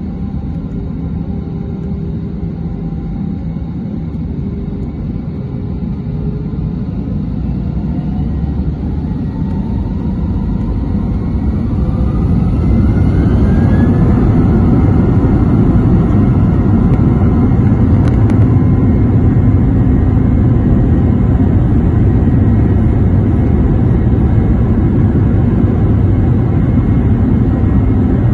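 Airbus A321-200 twin jet engines heard from the cabin, spooling up to takeoff thrust. About eight seconds in a rising whine climbs over several seconds as the rumble grows louder, then settles into the steady loud rumble of the takeoff roll.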